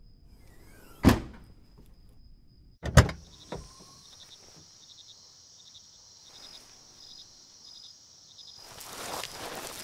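A car's hatchback boot lid slammed shut about a second in, then a second loud slam about two seconds later with a smaller knock just after it.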